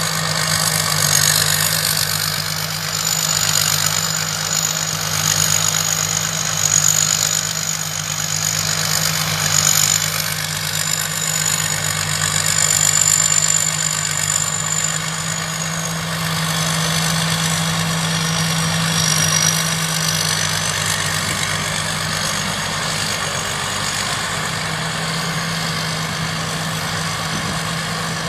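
Thai Charoen Kan Chang rice combine harvester running steadily, a constant engine hum under a wide mechanical rush. A thin high whine over it wavers slightly in pitch and fades out about two-thirds of the way through.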